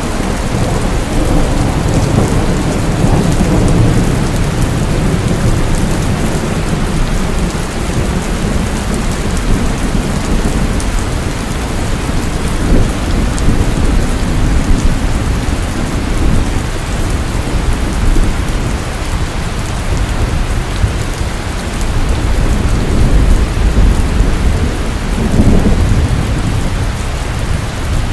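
Steady rain falling, with low rumbles of thunder swelling in the first few seconds and again near the end.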